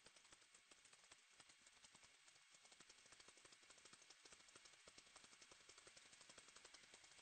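Near silence, with a faint, fast, even crackle of clicks, about ten a second, over a light hiss.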